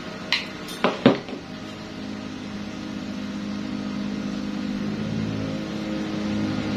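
Three sharp clicks in the first second and a half, then a steady machine hum that slowly grows louder.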